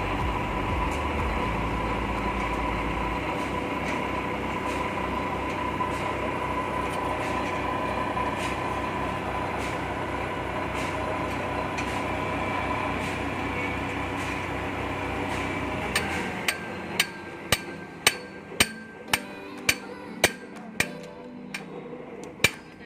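A heavy machine, plausibly the excavator, runs steadily with a held humming tone and stops about 16 seconds in. A hammer then strikes metal about twice a second, each blow ringing.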